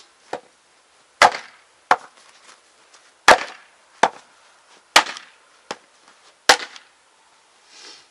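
Axe splitting a firewood round that is held together by a rubber strap on a chopping block. There are about eight sharp wooden chops; the four loudest come roughly every one and a half seconds, with lighter knocks between them.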